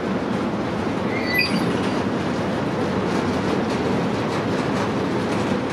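Freight train of empty two-deck car-carrier wagons rolling past, with a steady rumble of wheels on rail. A brief high wheel squeal comes about a second in, and wheel clicks come through more often in the second half.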